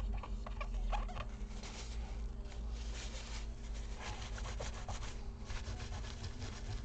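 A tissue rubbing old thermal paste off the chips of a laptop motherboard, in repeated short wiping strokes.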